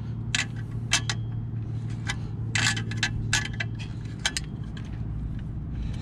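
Needle-nose pliers clicking against metal as they turn the small locking nuts that hold a caliper cover on a brake caliper. It is an irregular string of light metallic clicks and clinks.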